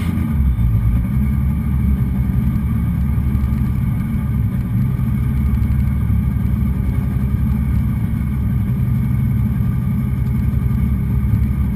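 Renault Clio Williams Group A rally car's four-cylinder engine idling steadily, heard from inside the stripped cabin.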